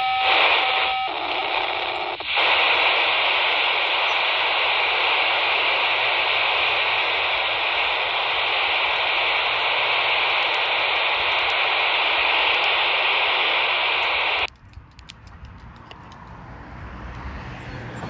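POCSAG pager data burst on 464.650 MHz heard through a scanner radio's speaker as a steady, harsh digital hiss. It has a couple of brief breaks near the start and cuts off suddenly about fourteen seconds in, leaving quieter background noise.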